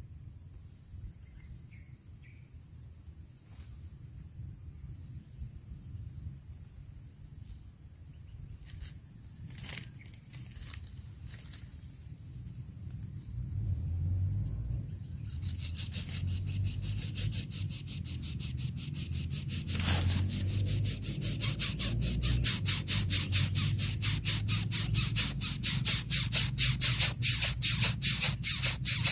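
A cricket's steady high trill. About halfway through, a fast, rhythmic rasping hiss joins it and keeps growing louder until it is the loudest sound.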